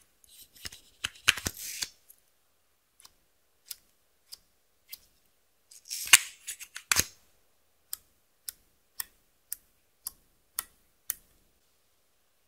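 Sharp clicks and snaps of hard plastic makeup packaging being handled and opened: a mascara tube and a small cosmetic jar. A few clustered clicks and rustles come first, a louder group about six seconds in, then a run of evenly spaced clicks about two a second.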